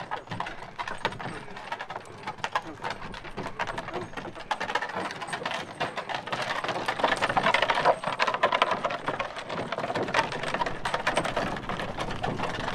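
A donkey's hooves and a group's footsteps crunching on a wet gravel lane as the donkey cart rolls along: a dense run of clicks and crunches, louder about halfway through.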